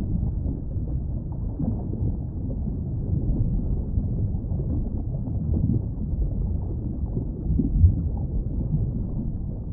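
Steady low underwater rumble of moving water, with no clear orca calls standing out.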